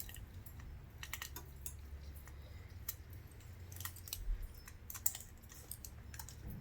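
Light, irregular clicks and taps of small repair tools on the plastic frame and parts of a Samsung Galaxy A50 phone being taken apart, over a low steady hum.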